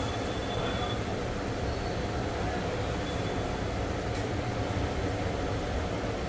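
Hot-air rework station blowing a steady stream of hot air onto a phone circuit board, heating the power management IC to desolder it.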